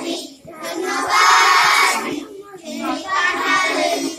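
A group of children singing together in long held notes, two phrases with a short break between them.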